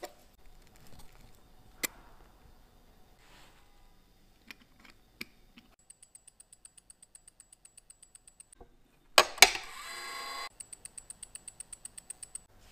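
A few light clicks of the watch movement being handled, then the fast, even ticking of the IWC Portugieser 8 Days' hand-wound movement running. About nine seconds in, a loud, brief clattering rustle cuts across the ticking.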